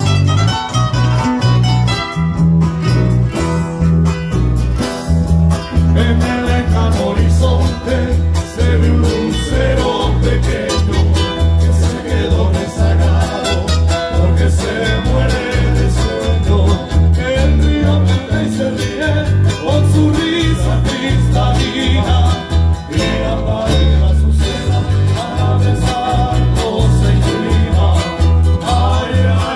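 Live northern Nicaraguan folk music: nylon-string acoustic guitars strumming and picking over a steady bass line, with a man singing.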